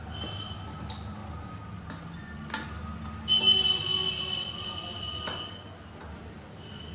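Hand mixing marinated chicken with lemon juice in a steel bowl: soft wet squishing, with a few sharp clicks as bangles knock against the bowl. About halfway, a steady high-pitched tone from something else sounds for about two seconds and is the loudest thing heard.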